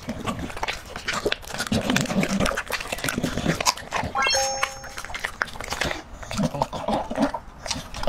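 A dog chewing and licking raw ostrich meat, with wet smacking and many short clicks. About four seconds in, a brief rising chime plays.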